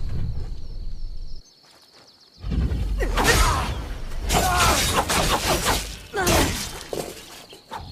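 Katana fight sound effects: loud crashing, shattering impacts with sweeping scraping streaks, in several bursts after a brief lull about a second and a half in.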